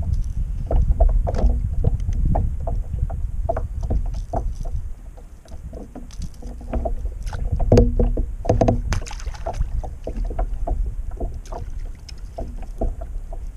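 Scattered knocks and taps of fishing gear being handled on a plastic kayak, over a steady low rumble of wind and water against the hull.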